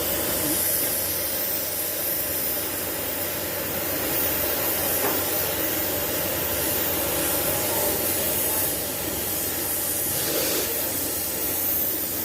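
Steady, continuous hissing from steel being welded or cut, with no breaks.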